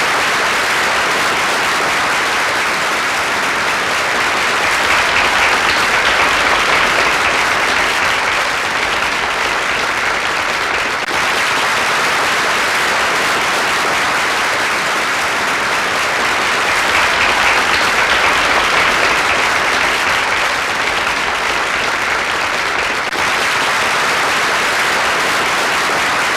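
A large crowd of about 250 people applauding, a dense, steady wash of clapping that swells slightly a couple of times.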